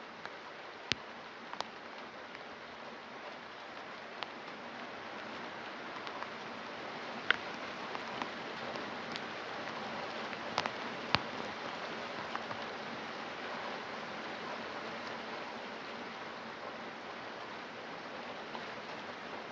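Steady rain falling, with scattered sharp taps of single drops standing out above the hiss. It grows a little louder over the first several seconds.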